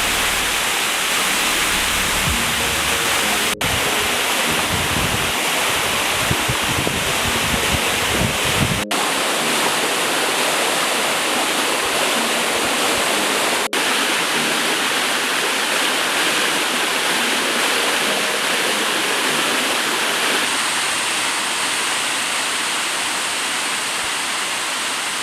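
Waterfall's water rushing steadily as a dense, even hiss. Irregular low buffeting runs through the first nine seconds, and the sound drops out briefly three times.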